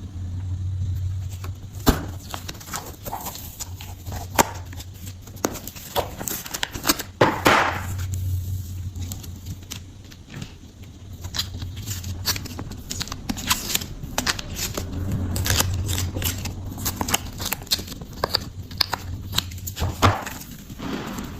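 Slime being squished and poked by hand: a continuous run of irregular sticky clicks, pops and crackles, with a few louder squelches along the way.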